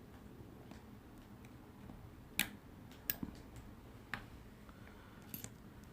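Small sharp clicks and taps of metal repair tools against the iPhone XS Max's small metal cover plates as they are lifted off. There are about five scattered clicks, the loudest about two and a half seconds in.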